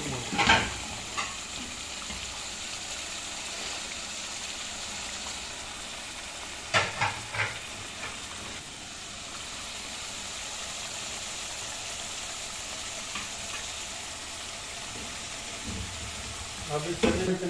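Chicken curry sizzling steadily in a pot on a gas burner while it is stirred with a wooden spoon. There are a few sharp knocks of the spoon near the start and about seven seconds in.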